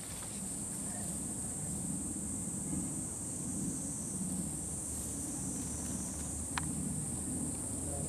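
Insects buzzing in a steady high drone over a low outdoor rumble, with a single click about six and a half seconds in.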